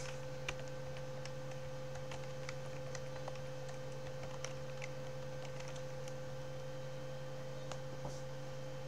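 Steady electrical hum, with a few faint scattered clicks.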